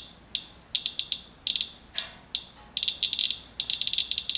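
Radalert Inspector Geiger counter chirping, each detected count a short high-pitched click at random, irregular intervals, coming faster over the last second or so. It is counting a few drops of rainwater well above background, a rate the owner calls disturbingly high.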